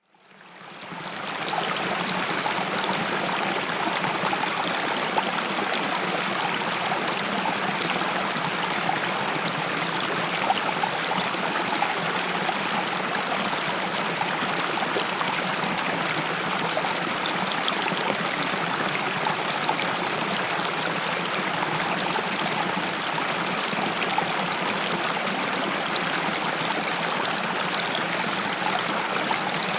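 River water flowing and rushing in a steady, unbroken wash. It fades in over the first second or so. A thin, steady high tone runs underneath throughout.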